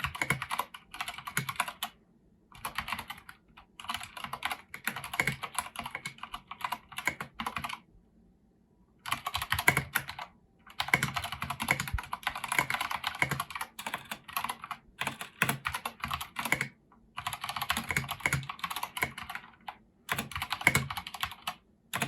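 Typing on a Filco Majestouch Convertible 2 mechanical keyboard fitted with Domi keycaps: rapid, continuous keystroke clacking in runs of a few seconds, broken by brief pauses.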